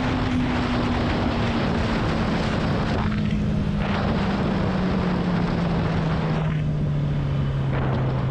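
Motorcycle engine under way with heavy wind rush on the microphone; the engine note drops slowly and steadily throughout as the revs fall.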